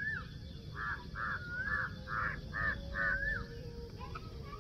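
Birds calling in the open: a run of short harsh calls, about two to three a second, with slurred whistled notes that rise and fall between them.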